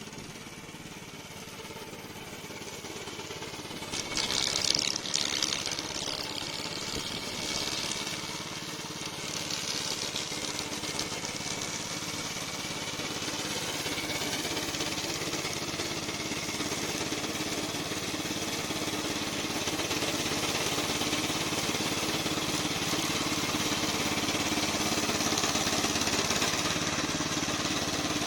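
Remote-controlled tracked lawn mower running steadily, louder for a moment about four seconds in and slowly growing louder over the rest.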